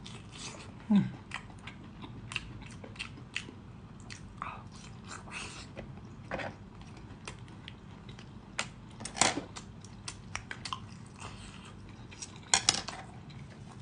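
Chewing and biting on sea snails, with many short, sharp clicks and taps as the shells are handled; the loudest clicks come about nine seconds in and again near the end.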